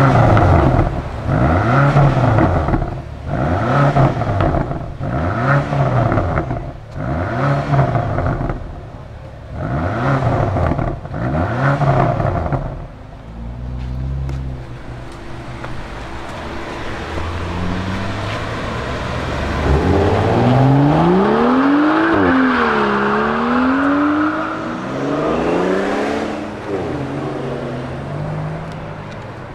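BMW XM's 4.4-litre twin-turbo V8 exhaust: about eight short throttle blips in a row while standing still, then a lower steady run. From about twenty seconds in, the engine note rises, dips and swells again as the car drives off.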